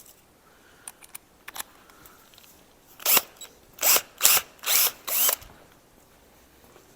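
Power drill run in about five short bursts, cleaning up misaligned bolt holes; a few light clicks come before it.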